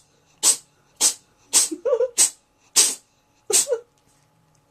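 A cat sneezing in a rapid fit: about six short, sharp sneezes, roughly two a second, that stop near the end.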